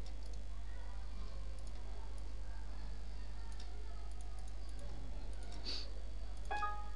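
Scattered faint computer-mouse clicks over a steady low hum. A short pitched sound comes near the end.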